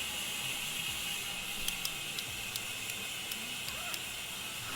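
A steady mechanical hiss with about eight sharp clicks scattered through the middle.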